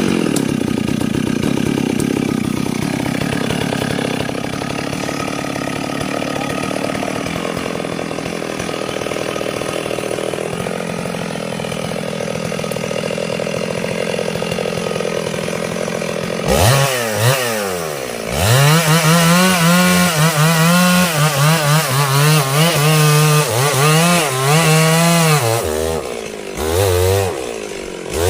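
Two-stroke chainsaw cutting through sengon wood at full throttle, the engine pulled down under load for about sixteen seconds. Its revs then drop sharply, climb back, and it runs high with a wavering pitch, easing off briefly a couple of times near the end.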